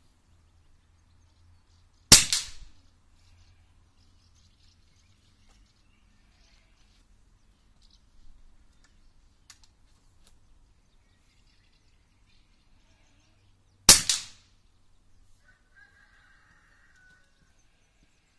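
Two shots from an MP-60 air rifle, about twelve seconds apart, each a sharp crack with a short tail. There are faint clicks between them.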